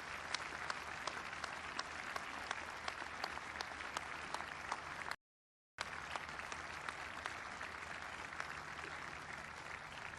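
Large crowd applauding, a dense patter of many claps. The sound cuts out completely for about half a second a little past halfway, then the applause resumes and slowly fades near the end.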